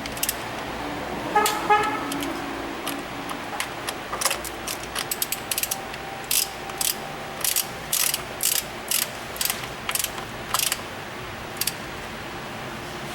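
Hand ratchet wrench clicking in quick short runs, about two strokes a second, as bolts are run down on an engine being reassembled. A brief pitched tone sounds about a second and a half in.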